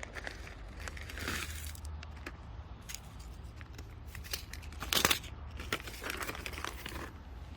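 Rustling and crinkling handling noises with scattered clicks over a low steady hum, loudest about five seconds in.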